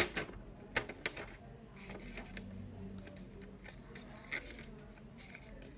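A folded paper instruction manual being handled and folded, rustling, with a few short sharp crackles.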